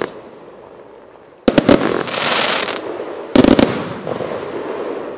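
Pyro Crazy consumer firework cake firing. A quick volley of sharp bangs comes about one and a half seconds in, then a loud hiss lasting under a second, then a second volley of bangs about two seconds after the first, fading away.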